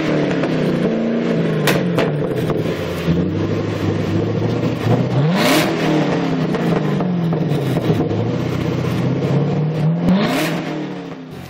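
V8 muscle car engine free-revved with its exhaust: it is falling back from a rev as the sound begins, then is blipped twice more about five seconds apart, each time a quick climb in pitch and a slower fall back toward idle. It goes quieter near the end.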